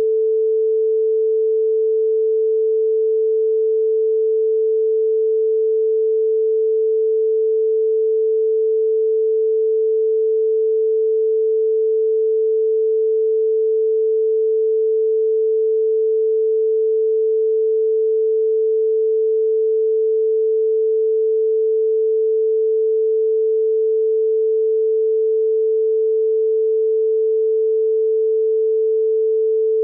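A telephone beep: one steady, mid-pitched pure tone, held without a break or change in pitch.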